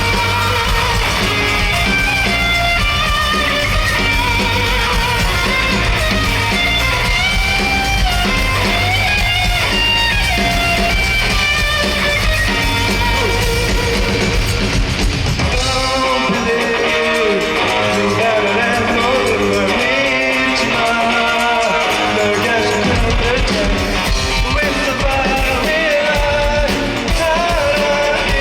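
Rock band playing live: electric guitar, bass and drums with a lead vocal. The bass thins out about halfway through while the guitar and singing carry on.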